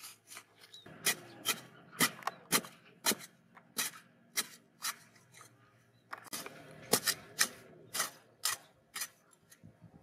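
A hoe's metal blade chopping and scraping into dry, crumbly soil while digging a hole, in a steady series of sharp strikes about two a second. There is a brief pause about five seconds in, then the strokes resume.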